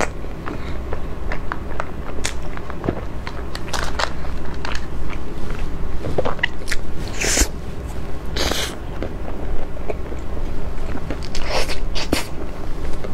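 Close-miked eating sounds: chewing and crunching as a chocolate-coated cake is bitten into, with a string of sharp crackles and two louder ones a little past the middle.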